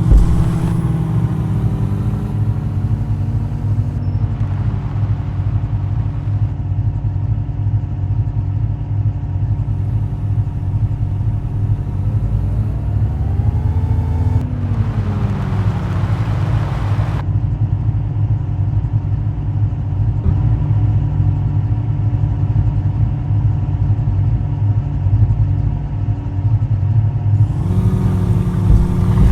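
Jeep engine running under way off-road, its pitch rising and falling as it is revved. A loud rushing noise lasts a few seconds about halfway through.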